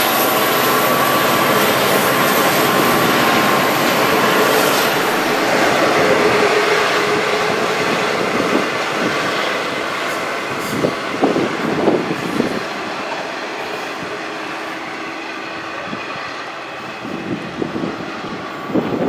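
V/Line passenger carriages rolling away on the rails behind an N class diesel locomotive, a steady rumble that slowly fades as the train recedes. A thin high wheel squeal dies away in the first few seconds, and wheels clatter over rail joints about eleven seconds in and again near the end.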